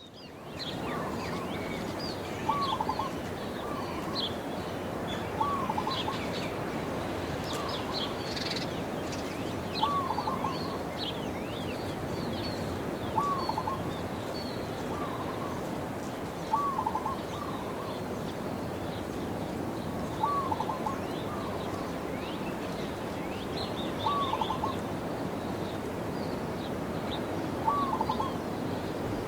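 Birds calling at dawn: many small songbirds chirping, with a lower, short call repeated every three to four seconds, over a steady outdoor background hiss. The sound fades in at the start.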